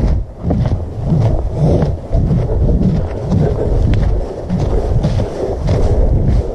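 Footsteps walking through dry fallen leaves, about two steps a second, each step swelling the heavy low rumble on the microphone, with a light rustle and crackle of leaves over it.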